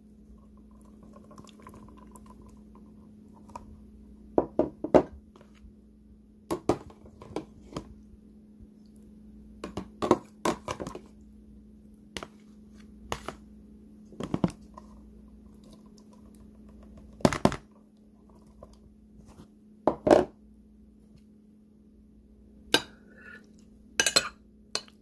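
Slotted metal spoon clinking and knocking against a plastic container and gelatin cubes while the jello is scooped and mixed: scattered sharp strikes, some in quick pairs or triplets, a second or more apart, over a steady low hum.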